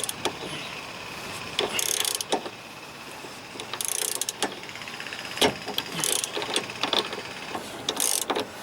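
A ratchet spanner clicking in about four short strokes as the nylock nut on the top bolt of a Porsche 986 tuning fork arm is undone. There are a few sharp metal clicks, the loudest about five and a half seconds in.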